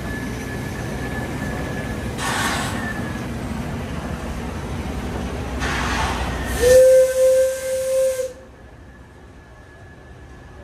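Shay steam locomotive SL31 venting steam in two hissing bursts, then sounding its steam whistle in one steady blast of about a second and a half, the loudest sound here, which stops abruptly.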